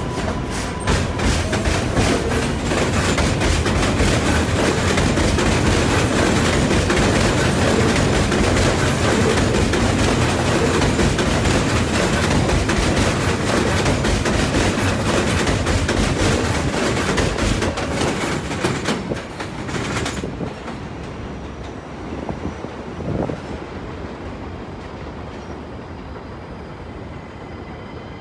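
R188 subway train running past on elevated track, its wheels clacking steadily over the rail joints. About twenty seconds in the sound drops off sharply as the last car clears, leaving a fading rumble of the train moving away.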